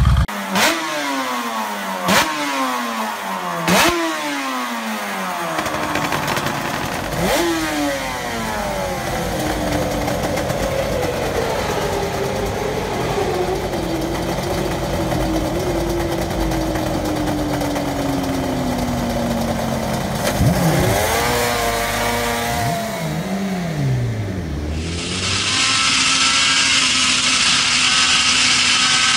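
Suter MMX 500's two-stroke V4 race engine revved sharply four times, each rev dropping straight back, then running fast and slowly settling, with a few more blips. About 25 s in, it changes to a motorcycle engine running steadily at speed, heard from on board.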